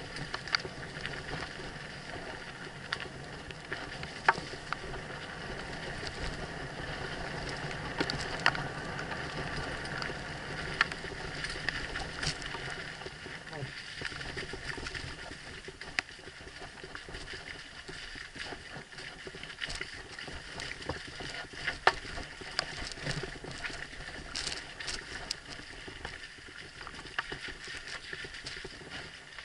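Mountain bike riding fast over a muddy dirt trail: a steady rush of tyre and wind noise, broken by frequent sharp clicks and knocks as the bike rattles over bumps.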